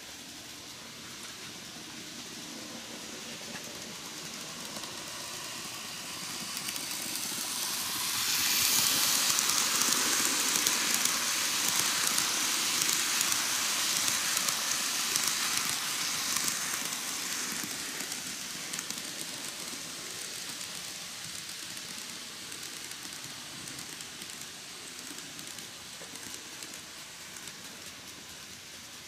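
KATO N-gauge D51 498 model steam locomotive running past on the track with a train of blue passenger coaches. Its running noise rises as the train approaches, is loudest for about eight seconds as it passes, then fades away.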